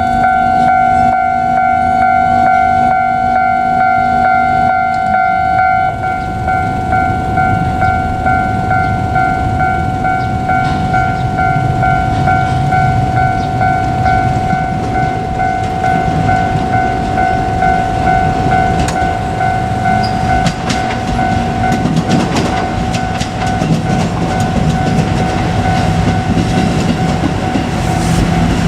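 Level crossing alarm ringing in a steady, repeating pattern while a JR Kyushu KiHa 200 diesel railcar runs through the crossing. From about six seconds in, the train's rumble and the clack of its wheels over the rail joints come up under the alarm.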